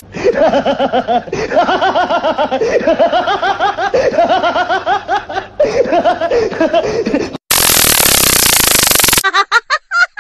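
A man's voice yelling and laughing in quick pulses, as in a mock electric shock. About seven and a half seconds in, a loud burst of static-like hiss lasts a little under two seconds.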